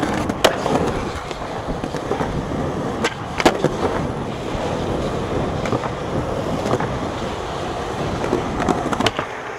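Skateboard wheels rolling over rough concrete with a steady rumble. Sharp clacks of the board hitting the ground come right at the start, about half a second in, twice around three to three and a half seconds in (the loudest), and once more near the end.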